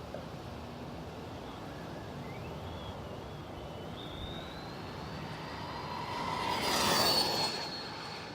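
High-pitched whine of a Traxxas Rustler VXL RC stadium truck's 3500 kV brushless motor on a full-throttle speed run, rising in pitch as it builds speed. The truck then rushes past loudly about seven seconds in.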